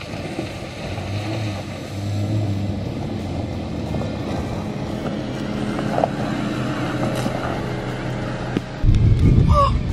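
An SUV driving over a rough dirt track toward the camera and passing close by. It is loudest near the end, as it goes by. Background music plays underneath.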